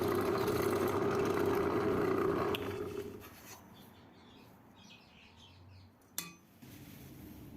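A power tool's motor running steadily, then switched off about two and a half seconds in and spinning down. One sharp click comes near the end.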